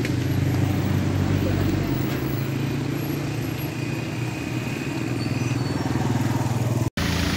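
Steady low hum of motor vehicle engines, with faint voices mixed in; the sound cuts off suddenly near the end.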